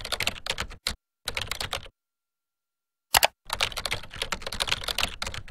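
Rapid typing on a computer keyboard: three bursts of quick keystrokes separated by short pauses, with one louder single click about three seconds in.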